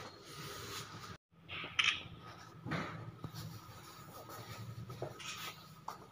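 Scattered scratchy rustles and scrapes of close handling over a faint steady hum, with the sound cutting out completely for a moment about a second in.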